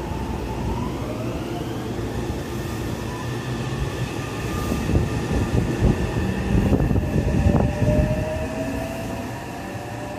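Meitetsu electric commuter train pulling out of the station, its traction motors whining and slowly rising in pitch as it gathers speed over a heavy rumble of wheels on rail. A second rising whine starts about seven and a half seconds in.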